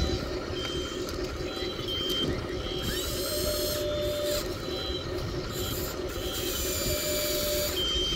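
Small electric gear motors of a radio-controlled model excavator whirring as it works its arm and swings its bucket over the dump truck. Short, higher motor whines start and stop about once a second over a steady mechanical rattle.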